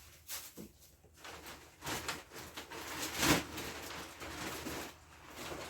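Rustling and handling noises in a few short bursts, the loudest about three seconds in.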